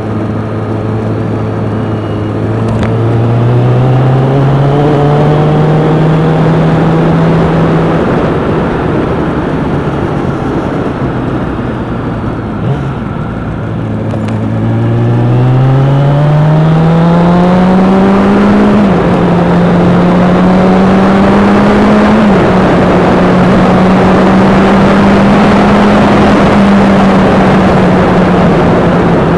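Vehicle engine heard from an onboard camera, pulling up through the gears: the revs climb for several seconds, fall back and ease off near the middle, then climb again with two quick shifts before holding steady at cruising speed. Road and wind rush grow louder as the speed builds.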